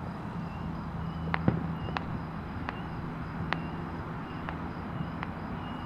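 Scattered sharp pops of distant fireworks and firecrackers, several a second apart, over a steady low hum of freeway traffic. A few short, faint high chirps sound between the pops.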